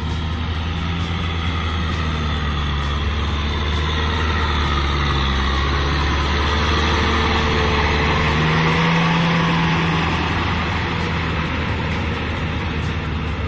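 Kubota M6040SU tractor's four-cylinder diesel engine running steadily under load as it drives a rotary tiller through flooded paddy mud. It grows louder and its note shifts slightly past the middle, then eases back.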